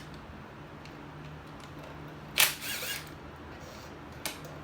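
A sharp metal clack of a hand tool being handled, about halfway through, with a brief ring after it, and a fainter click near the end, over a low steady hum.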